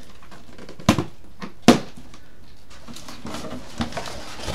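Cardboard packaging and a plastic bag being handled as the boxed item is lifted out. Two sharp knocks about a second apart come near the start, then softer rustling and small knocks.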